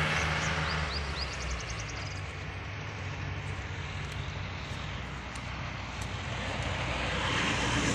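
Road traffic passing: a vehicle's engine hum fading out in the first second, then steady road noise, with another vehicle approaching and growing louder near the end. A few faint high chirps sound in the first two seconds.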